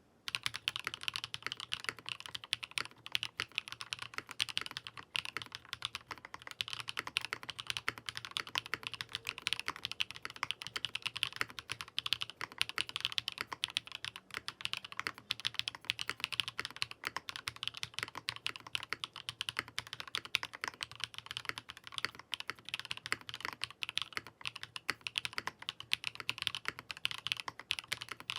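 Fast, continuous typing on a Meletrix ZOOM75 TIGA custom mechanical keyboard with pre-lubed switches, an elastic-bar mount and Cherry-profile keycaps: a dense stream of keystroke clicks and clacks. Its sound is called very amazing and pretty unique, put down to the internal materials such as the cork and sandwich foam.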